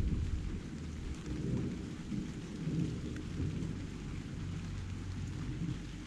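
Thunder rumbling low and rolling on in waves, loudest at the start, over a steady hiss of rain.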